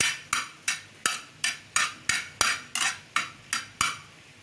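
A metal spoon stirring macaroni around a steel pan, scraping and knocking against the metal in a steady rhythm of about three strokes a second, with a short pause near the end.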